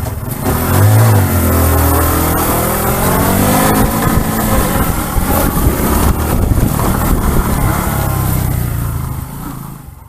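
Bajaj motorcycle engine revving and pulling away, its pitch rising and falling, then running on and fading away near the end.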